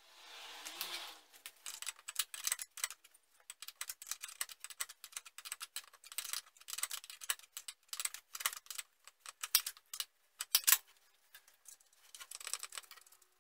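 Gloved hands fitting a brake master cylinder and its hardware loosely onto the brake booster: a dense run of small metallic clicks and rattles. A short rustling hiss comes in the first second or so.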